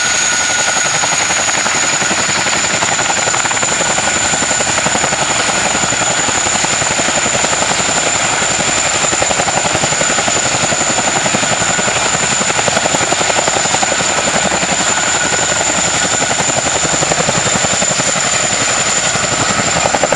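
Boeing CH-47 Chinook tandem-rotor helicopter running with both rotors turning: a steady rapid rotor chop under a high, steady turbine whine that creeps slightly upward in pitch.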